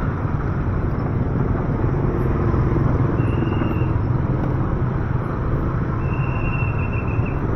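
Steady low rumble of street traffic heard from a slow-moving electric motorcycle among scooters and cars. Two brief, steady high tones come about three and six seconds in.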